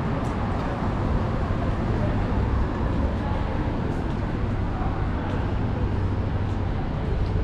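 Busy downtown street ambience: a steady rumble of traffic with a low engine hum, mixed with indistinct voices of passers-by.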